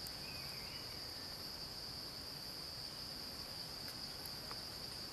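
Steady, continuous high-pitched drone of insects such as crickets or cicadas, an unbroken single tone with a few faint chirps and ticks over it.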